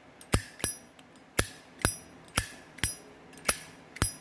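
1976 polished-chrome Zippo lighter with its lid flicked open and snapped shut over and over: about eight crisp metallic clacks, each ringing briefly, roughly two a second. A good, clean lid sound.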